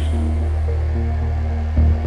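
Background music: a dark electronic track over a steady deep bass, with a heavy low hit near the end.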